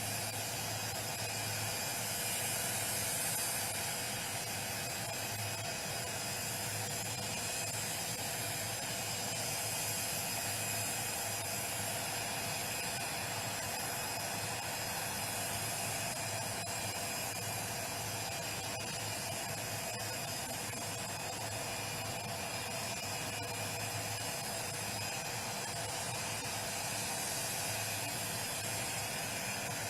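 Jet aircraft engine idling: a steady hiss with a constant high whine.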